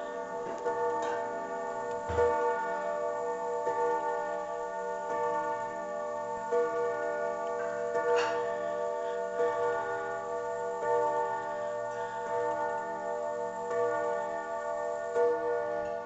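Sligh triple-chime clock striking the hour on its chime rods: a chord of several rods struck together about every second and a half, each stroke ringing on into the next.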